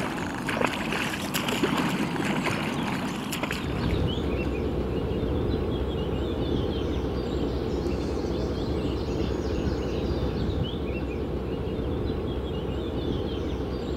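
Water splashing and swishing from a swimmer's front-crawl strokes. After about three and a half seconds this changes to the steady low drone of a motorboat's engine running underway, with birds chirping faintly over it.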